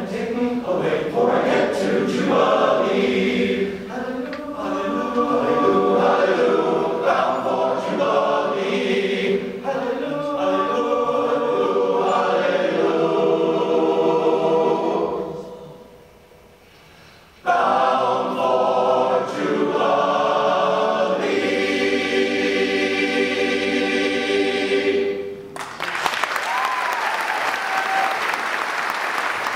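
Men's chorus singing in harmony; about halfway through it falls to a brief silent pause, then comes back in loudly on a long held final chord. Audience applause breaks out near the end.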